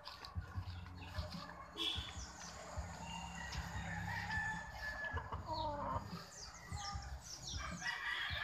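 Gamefowl roosters crowing, one long crow around the middle, with clucking.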